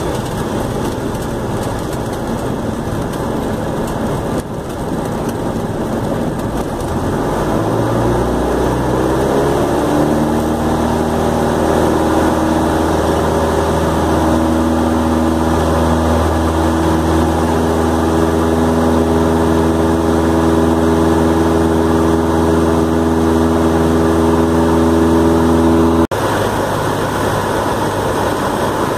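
Cessna 172's piston engine and propeller: a rushing airflow noise at first, then the engine rising in pitch over a few seconds as power is brought up, and running steadily at high power. The sound cuts off abruptly near the end and comes back lower.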